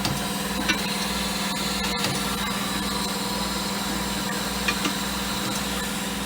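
A steady mechanical hum, engine-like, over a low rumble that pulses evenly, with a few light clicks or knocks.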